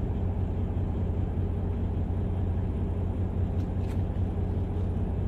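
Steady low drone of a semi truck's idling engine, heard from inside the sleeper cab. Two faint ticks a little before 4 s come from trading cards being handled.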